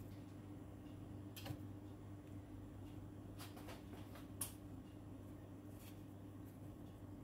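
Quiet kitchen room tone with a steady low hum, broken by a few faint light clicks; the sharpest comes about four and a half seconds in.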